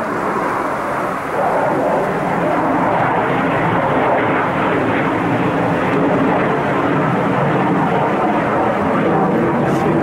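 Military jet passing overhead: a steady, loud jet roar.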